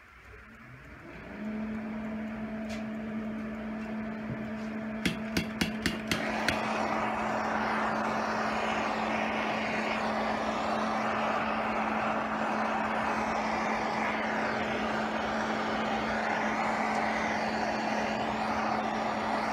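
A handheld propane torch clicks about six times, then lights around six seconds in and burns with a steady rush, preheating cast iron before welding. A steady hum runs underneath from about a second in.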